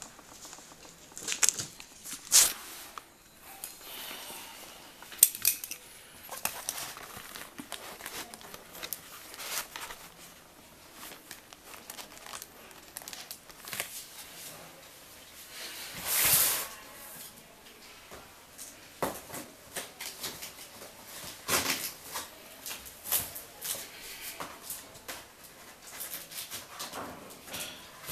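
Handling of a large cardboard TV box: scattered knocks, clicks and rustles, with one louder, longer noise about sixteen seconds in.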